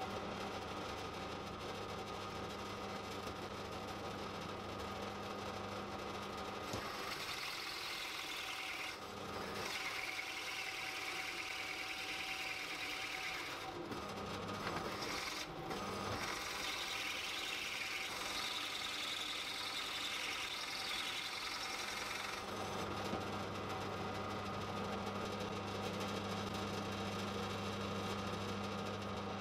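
Benchtop drill press motor running with a steady hum. From about seven seconds in, a Forstner bit bores into a wooden block with a coarse cutting rasp, broken twice by short pauses as the bit is lifted. The motor hums alone again for the last several seconds.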